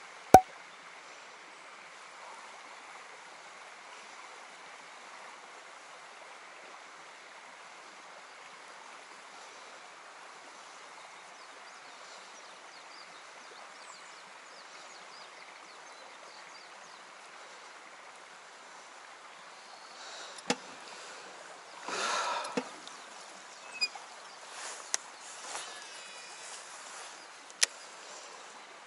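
Steady faint outdoor background noise, broken by one sharp click about half a second in. Over the last third come several more clicks and knocks and a brief rustle, as tackle and the boat are handled.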